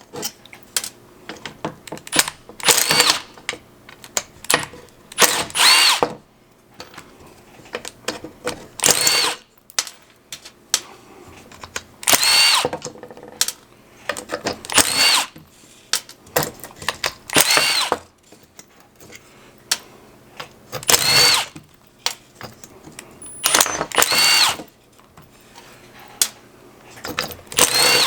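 Cordless drill-driver spinning out the small bolts that hold RB-series ignition coil packs to their rail. About ten short bursts of motor whine come every two to three seconds, with small clicks and handling noise between them.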